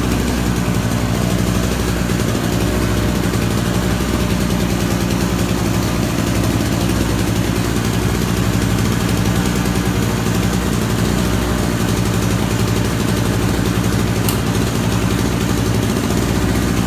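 Small 1 kW two-stroke petrol generator running steadily, with a brief click near the end.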